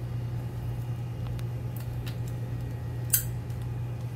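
Steady low background hum with a few faint light clicks and one sharp click about three seconds in.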